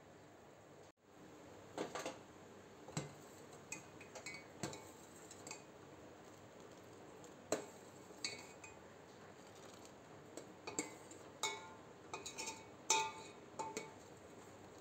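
Metal spoon stirring milk and makhana in a stainless steel pot, clinking and scraping against the pot's sides in irregular taps, some of which ring briefly.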